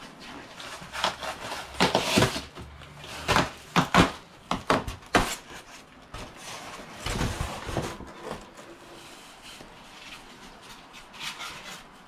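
Packaging being handled and torn open on a large box: a quick run of rustles, scrapes and knocks, busiest in the first half, with another cluster about seven seconds in, then quieter handling.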